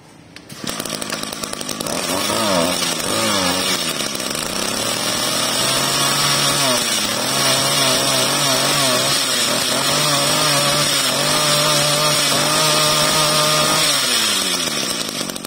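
Zenoah 23cc two-stroke brush cutter engine starting up about half a second in, revved up and down a few times, then held at high revs before being throttled back down near the end.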